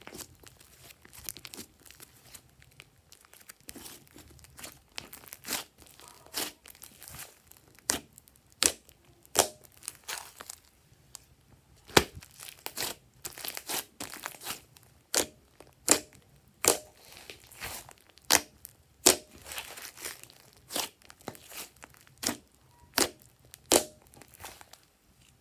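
Hands squishing and kneading glossy slime: a run of sharp, wet pops and crackles as air pockets in the slime burst, sparse at first and then about one a second, the loudest about halfway through.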